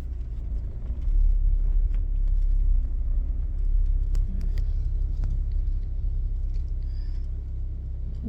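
Car interior road noise: a steady low rumble of the moving car, growing louder about a second in, with a few faint ticks.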